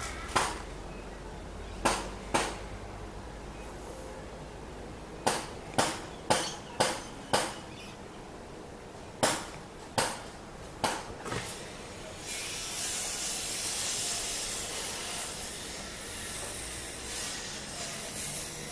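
A series of sharp knocks, including a run of five about two a second, followed from about two-thirds of the way in by a steady high hiss.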